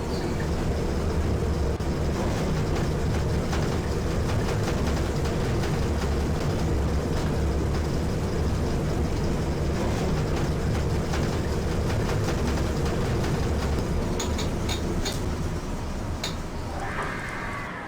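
Hitachi high-rise lift car travelling in its shaft: a loud, steady rumble with deep low-end noise. Near the end the rumble eases off as the car slows, with a few clicks and a brief higher tone.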